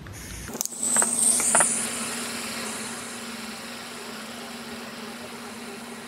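Butane soldering iron with a hot-air tip lit with a sharp ignition click, followed by a couple of smaller clicks, then hissing steadily as the gas burns. The hiss is loudest for the first couple of seconds and then settles.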